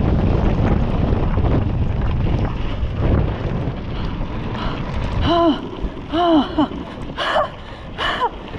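Mountain-bike ride at speed on a gravel dirt trail: wind buffeting the microphone and tyre rumble, starting suddenly. From about halfway there are four or five short voice sounds, each rising and falling in pitch, like brief calls.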